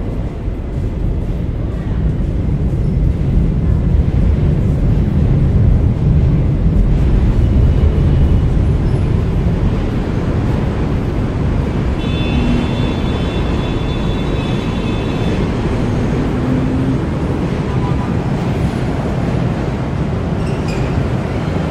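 Steady low rumble of an elevated subway line and street traffic, heavier in the first half, with a high squeal of several steady tones for about three seconds near the middle.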